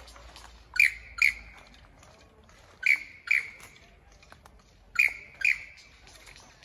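Superb lyrebird calling loudly: three pairs of short, sharp notes. Each note sweeps up and then holds briefly, the two notes of a pair come about half a second apart, and the pairs repeat about every two seconds.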